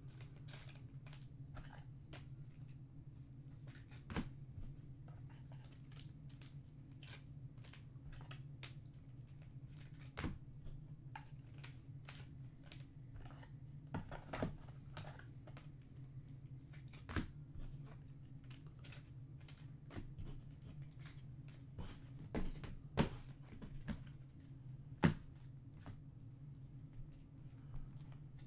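Trading cards being handled, flipped and sorted by hand: irregular light clicks and snaps of card stock and packs, with a few sharper snaps near the end, over a steady low hum.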